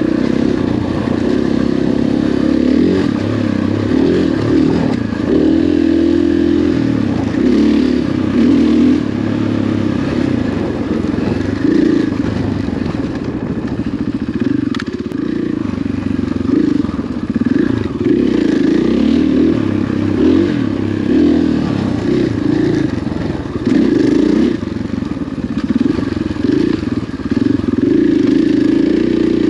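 Dirt bike engine running on a trail ride, its note rising and falling with the throttle.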